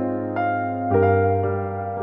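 Background music played on a piano-like keyboard: slow held notes, with new notes struck twice.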